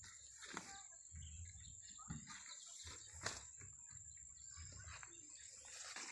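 Faint outdoor field ambience: a steady high-pitched tone with a few soft clicks, about half a second, two seconds and three seconds in, over low rumbles.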